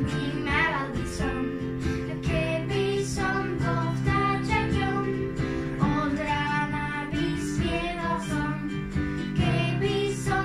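Children singing a Slovak Christian children's song, accompanied by piano and a strummed small guitar.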